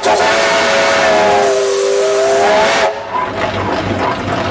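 Steam whistle on a 19 hp Port Huron traction engine blowing several notes at once over a loud rush of steam hiss. The pitch sags in the middle and rises again, and the whistle cuts off about three seconds in, leaving quieter engine noise.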